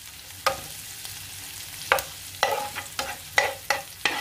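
Chopped shallots and curry leaves sizzling in hot coconut oil in a frying pan, stirred with a steel spoon that scrapes and taps against the pan about seven times.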